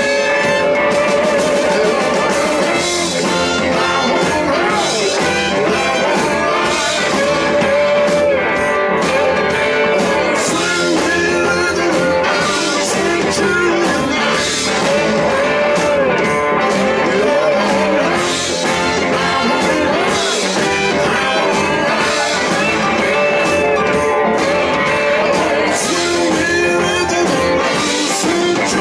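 Live blues-rock band playing, with electric guitar to the fore.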